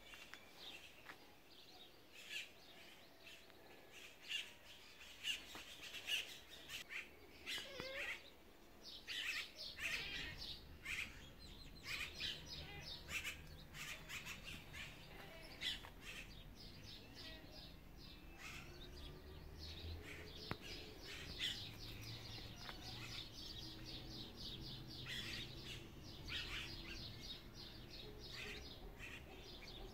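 Birds chirping in many short, rapid calls throughout. A low steady rumble comes in underneath about ten seconds in.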